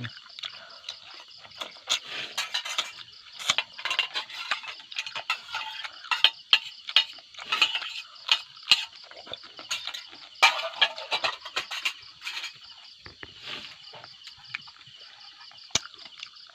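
A steady, high-pitched chirring of insects, with many short irregular clicks and clinks of dishes and utensils from people eating.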